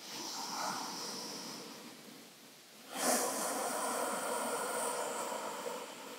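A woman's deep, slow belly breathing close to the microphone: two long breaths, the second louder, starting abruptly about three seconds in.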